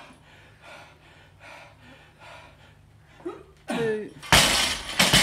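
A man panting fast and hard while holding a loaded barbell at his shoulders, a short grunt, then the barbell with bumper plates dropped onto the rubber floor about four seconds in: a loud crash followed by the plates and collars rattling.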